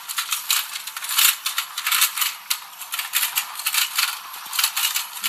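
A toy fishing game's plastic mechanism running, with a steady rapid clicking and rattling.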